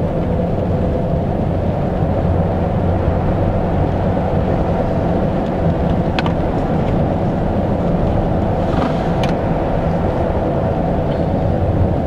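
Steady road noise inside the cab of a 2017 Honda Ridgeline driving at highway speed on a snow-covered road: a low, even rumble from the tyres on snow and the running drivetrain. A couple of faint ticks come about six and nine seconds in.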